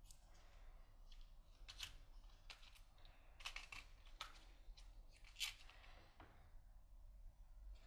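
Faint small-parts handling: a string of short clicks and light crinkles as a clear plastic parts box and paper packets of fuses are opened and handled. The loudest click comes about five and a half seconds in.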